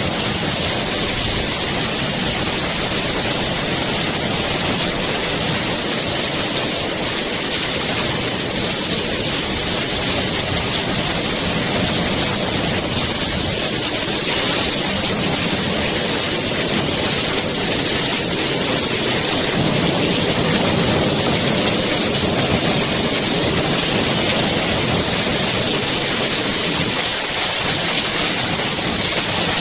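Steady rain, an even hiss that holds at one level without thunder or other events.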